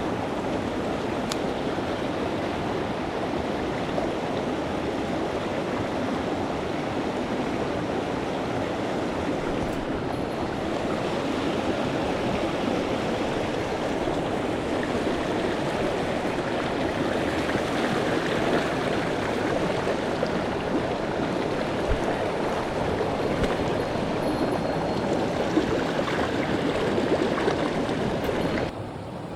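Mountain stream running, a steady rush of water that drops suddenly to a quieter level near the end.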